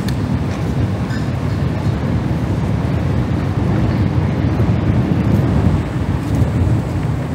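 Steady, loud low rumble of outdoor street noise on a promenade at night.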